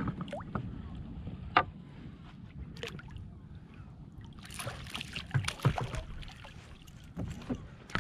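Sea water sloshing against a kayak with wind rumbling on the microphone, broken by a few short knocks and a brief splashy rush a little past halfway.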